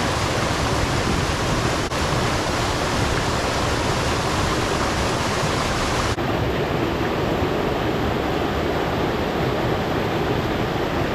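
Mountain stream cascading over boulders: a steady rush of white water, close by.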